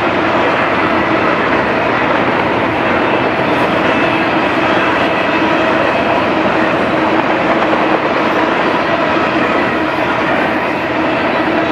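Double-stack intermodal well cars of a BNSF freight train rolling past: a loud, steady noise of steel wheels running on the rails.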